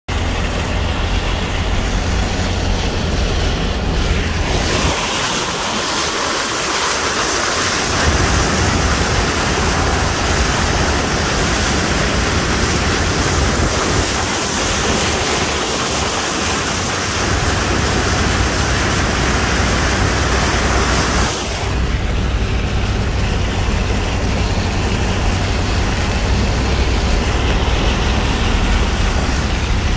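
Pickup truck driving through floodwater: a steady rushing hiss of water spraying off the tyres and body over the low drone of the engine and road. The spray hiss is much louder from about five seconds in until about twenty-one seconds, when the view is out past the side mirror into the spray.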